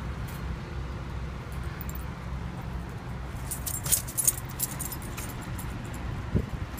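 A dog's metal chain collar jingling in a cluster of quick clinks around the middle, over a steady low rumble of street traffic.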